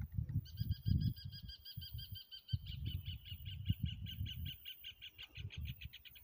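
A bird singing one long trill of rapid, evenly spaced notes, about eight a second, that changes about two and a half seconds in to a buzzier, lower series. A low rumble runs underneath.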